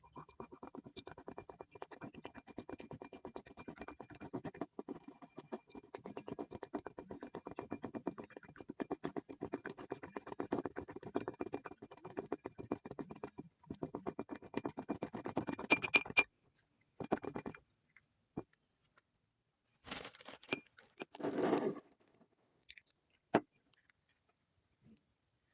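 Slime being stirred and mixed in a bowl: rapid, continuous scraping and sticky scratching for about sixteen seconds, then a few separate short scrapes.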